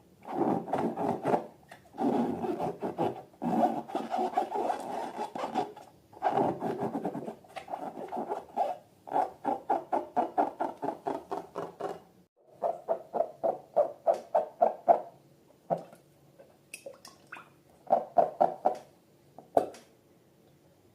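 Slime being squeezed and worked by hand with balloons, in several runs of rapid, close-spaced clicks and pops with short pauses between them.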